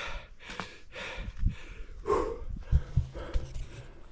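A man breathing hard in quick, heavy breaths, winded, with one louder voiced exhale about two seconds in and a few low thumps of camera handling.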